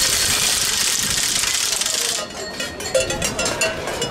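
Clatter of carnival noisemakers, wooden rattles and cowbells. It is dense at first, then about two seconds in it thins into scattered clicks and knocks.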